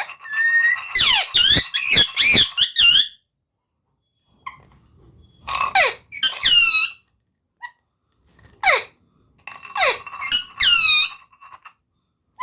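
A pet parrot calling in shrill, high squawks that sweep down in pitch. The calls come in three bursts, at the start, around the middle and near the end, with short silent gaps between them.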